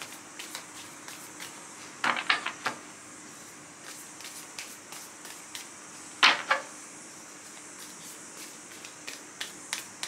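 Tarot cards being shuffled by hand: light clicks of cards sliding against each other, with louder groups of sharp card slaps about two seconds in and again about six seconds in.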